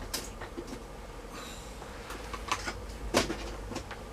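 A few light clicks and a brief scrape from hands and a tool working on a plastic notebook battery pack.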